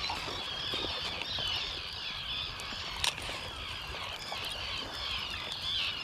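A flock of seabirds calling over the water: many high, chirping calls overlapping without a break. One sharp click stands out about three seconds in.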